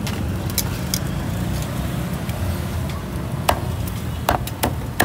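Cleaver chopping grilled meat on a metal griddle, with tongs clinking: a handful of irregular sharp knocks, the loudest in the second half, over a steady low rumble.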